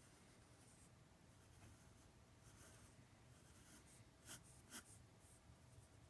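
Faint scratch and squeak of a felt-tip marker drawing lines on paper in short strokes, with two sharper strokes a little over four seconds in.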